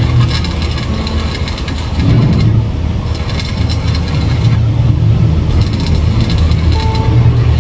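A heavy machine's engine running steadily, with metallic clattering and rattling over it that grows louder about two seconds in.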